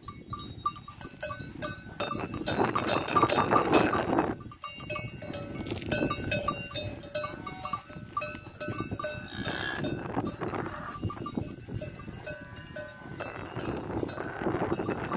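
Bells on a herd of grazing cows ringing and clanking irregularly as the cattle walk up, with cows lowing in several longer calls, loudest a couple of seconds in.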